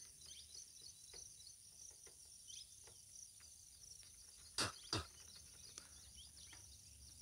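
Faint clicks of a screwdriver working the terminal screws of MCB breakers in a plastic distribution box, with two sharper clicks about four and a half and five seconds in. Crickets chirr steadily behind.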